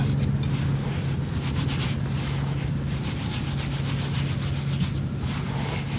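Hands rubbing roasted glutinous-rice flour and sugar together in a bowl: repeated dry, scratchy rubbing strokes as the sugar is worked into the flour. A steady low hum runs underneath.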